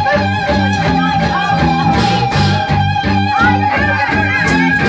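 Live band music with guitar and electric bass: the bass steps through notes in a steady rhythm under guitar playing bent notes, with one long held high note through most of it.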